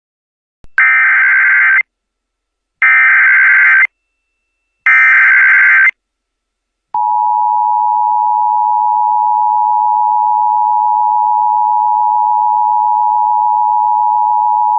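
Emergency Alert System warning opening: three one-second bursts of screeching digital data (the SAME header), then about a second in silence, and from about seven seconds in the long steady attention tone that announces the alert.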